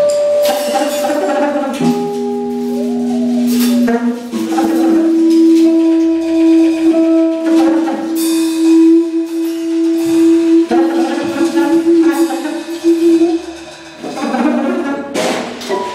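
Free-improvised live music from saxophone and drum kit: long held wind-like tones, one lasting about nine seconds, over scattered clattering percussion strikes and clicks.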